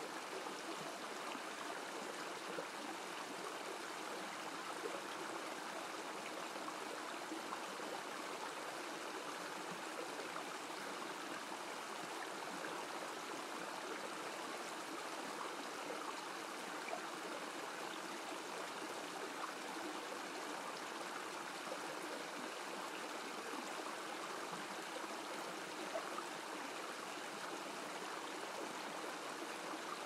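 Water running and splashing steadily as thin streams trickle and drip down a wet, mossy rock face.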